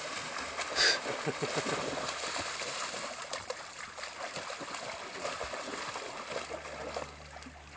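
Two German shepherds splashing and churning through shallow water as they play, with a short, sharp sound about a second in. The splashing eases off near the end.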